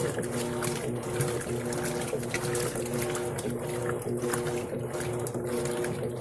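Electrolux Essencial Care LES13 washing machine running: its motor hums steadily while water splashes inside the tub.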